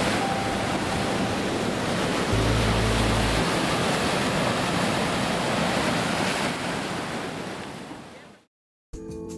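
Ocean surf breaking on a rocky shore, a steady rush of waves with wind on the microphone. It fades out near the end.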